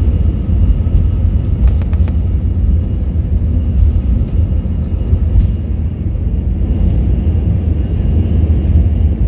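Airbus A320 on its takeoff roll, heard from inside the cabin: a loud, steady low rumble of the jet engines at takeoff thrust and the wheels on the runway, with a faint steady high whine above it. A few light cabin rattles come about two seconds in.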